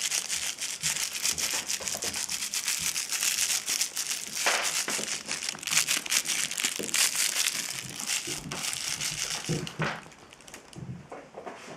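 Crinkly plastic streamers of a cat wand toy rustling and crackling as they are shaken and batted, dying down about ten seconds in.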